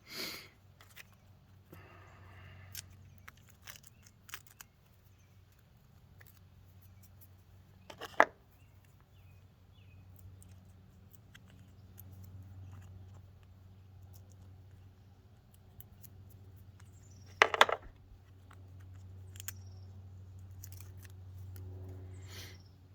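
Small scattered clicks and taps of hand work on parts, with two sharp, louder clicks about eight and seventeen seconds in, over a low steady hum.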